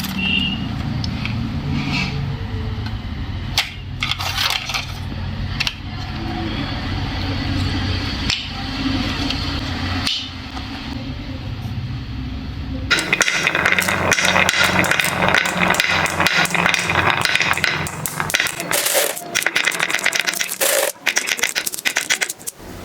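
A low steady hum with a few clicks, then about halfway through a dense clatter of marbles clicking and rattling down a toy marble-run track.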